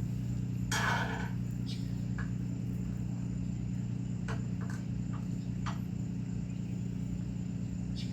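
Faint clicks and a short scrape of a screwdriver working on carburetor drain screws, over a steady low hum.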